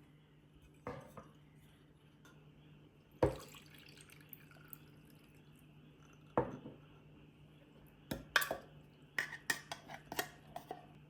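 Items and their packaging being handled and set down on a hard surface: single knocks about 1, 3 and 6.5 seconds in, then a quick run of clicks and taps near the end.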